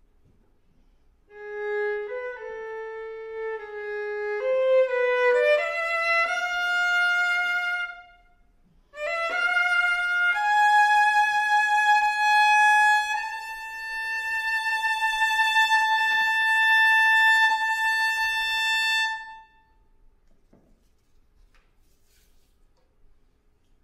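Solo violin playing a slow phrase of notes that step upward in pitch, breaking off briefly, then climbing to one long held high note that stops about four seconds before the end.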